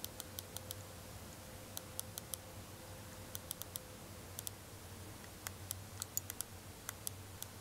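Scroll wheel of a G-Wolves HSK gaming mouse being rolled, its notches giving faint, sharp ticks in short runs of several at a time with pauses between.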